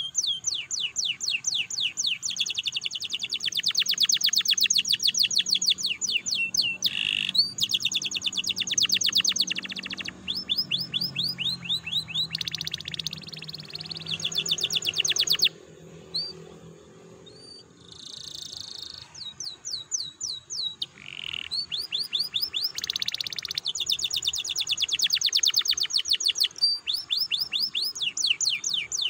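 Domestic canary singing: long, high rolling trills of rapidly repeated notes, in phrases broken by short pauses, with a longer pause of about two seconds a little past the middle.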